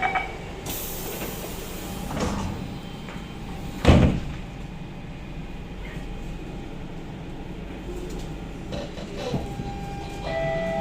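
Sliding doors of a Siemens C651 metro carriage closing: a high hiss about a second in, then a loud thud as the doors shut about four seconds in. A low rumble follows, and near the end the motor tones begin to rise as the train starts to pull away.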